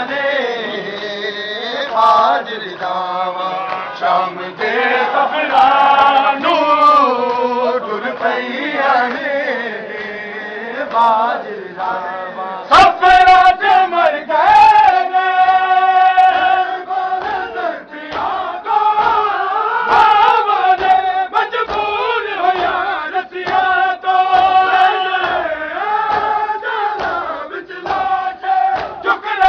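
A group of men chanting a Punjabi noha (Shia lament) in unison, recorded live amid a dense crowd. From about halfway in, a steady beat of thuds runs under the singing, typical of matam chest-beating.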